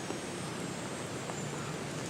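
Steady rushing noise of outdoor nature ambience, even and unbroken, with no distinct calls or impacts standing out.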